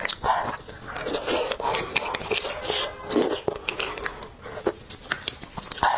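Close-miked eating sounds: a metal spoon scraping marrow out of a cooked marrow bone, with irregular clicks and chewing.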